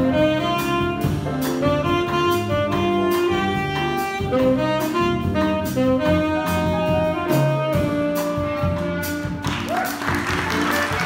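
Small jazz combo playing a bossa nova: an alto saxophone solo over piano, electric bass guitar, archtop guitar and drums, with evenly spaced cymbal strokes. Near the end the saxophone solo finishes and the audience applauds over the band.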